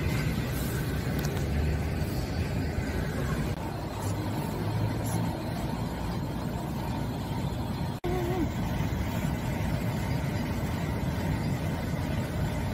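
Steady background noise of city traffic, mostly low rumble. It drops out for an instant about eight seconds in, and just after that comes a brief wavering call.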